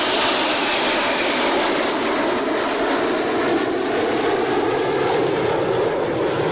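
Formation of Red Arrows BAE Hawk T1 jets flying past: a steady jet roar, with a high whine that slides down in pitch during the first second.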